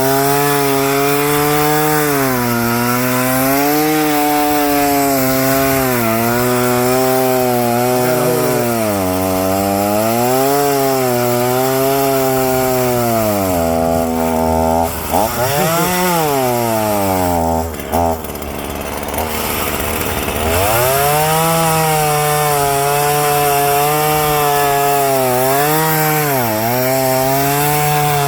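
Gasoline chainsaw cutting through tree limbs, its engine pitch dipping and recovering as the chain loads up in the wood. About halfway through it drops to a low idle for a few seconds, then revs back up and cuts again.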